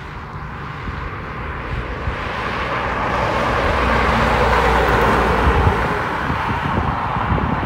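A 2006 Porsche 911 (997.1) Carrera's flat-six engine on its stock factory exhaust, driving past at a steady cruise. It grows louder as the car approaches, is loudest about four to five seconds in, then eases off as it goes away.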